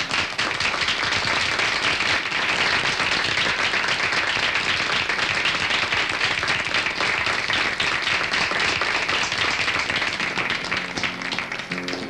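Audience applauding steadily at the end of a song, fading near the end as a few acoustic guitar notes sound.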